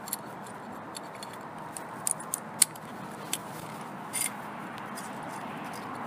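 Irregular metallic clicks and clinks from an adjustable wrench turning a cable-tensioning drum as the cable is wound tight, the loudest click about two and a half seconds in and a short clatter about four seconds in.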